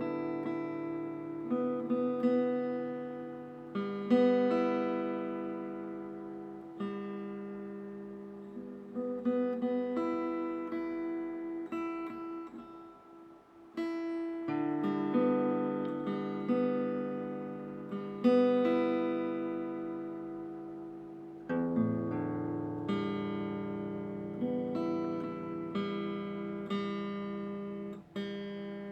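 Background music: slow acoustic guitar, plucked chords struck every couple of seconds, each ringing out and fading.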